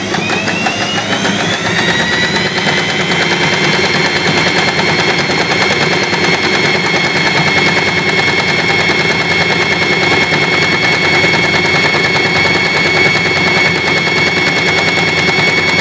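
Usha Janome Excella electric sewing machine running and stitching fabric. Its motor whine rises over the first two seconds or so, then holds steady under a fast, even needle chatter.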